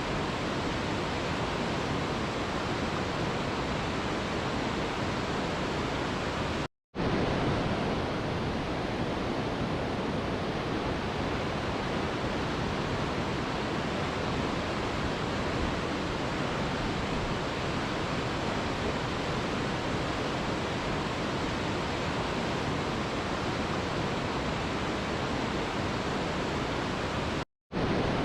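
Waterfall rushing in a steady, even roar of water noise, cut by two brief dropouts to silence, one about seven seconds in and one near the end.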